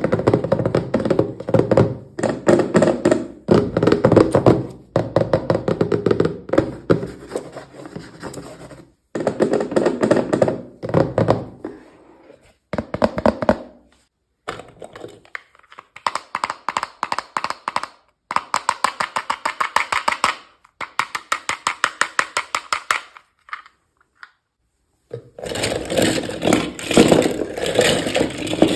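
Unboxing miniature toys: rapid clicking, tapping and scraping of small plastic pieces and packaging being handled, in short segments that cut off abruptly.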